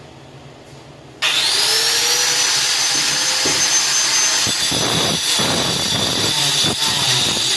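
An electric power tool starts a little over a second in, its motor whine rising quickly to a steady high pitch, then runs on loudly while cutting through half-inch fiber-cement board (Hardiflex).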